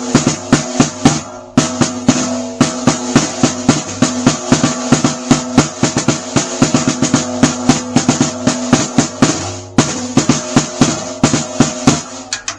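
A 14x8 basswood snare drum struck rapidly with sticks, about five strokes a second, the snare wires buzzing under each hit and the head ringing on one steady pitch. It is tuned only roughly, tightened for tension rather than tone. The playing breaks off briefly about a second and a half in and again near ten seconds.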